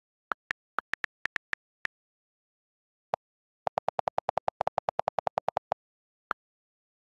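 iPad on-screen keyboard click sounds: a handful of separate key taps, then a fast, even run of about twenty lower-pitched clicks as the delete key is held down and repeats, erasing the typed text, then one last tap.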